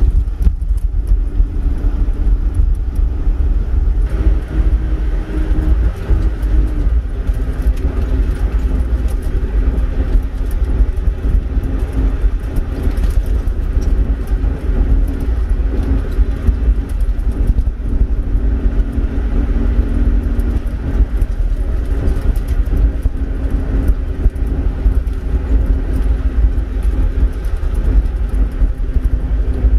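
Vehicle driving along a gravel track, heard from inside the cab: a steady engine drone over a constant low rumble of tyres on gravel.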